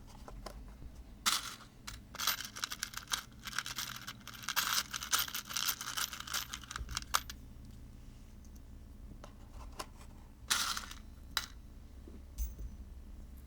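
Irregular bursts of rustling and scraping handling noise with a few sharp clicks, as parts are handled at a workbench, over a steady low hum.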